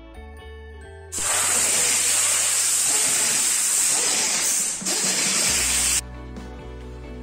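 Compressed air hissing hard and steadily from a mechanic's air-hose tool for about five seconds, dipping briefly near the end before cutting off, over soft background guitar music.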